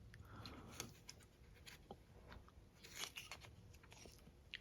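Near silence, with a few faint clicks and light rustles from handling the removed dehumidifier control board.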